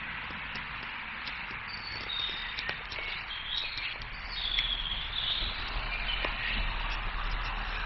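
Woodland birds singing short whistled phrases over a steady background hiss, with a low rumble coming in about halfway.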